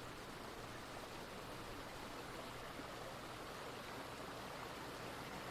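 Faint trickling water of a small brook, a steady, even rush that grows slightly louder.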